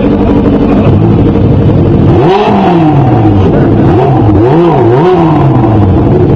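An engine running steadily, then revved up and let fall back several times from about two seconds in, its pitch rising and dropping with each rev.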